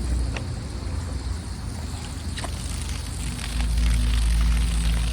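A low, steady droning hum that dips about a second in and swells again in the second half, with a few faint clicks over it.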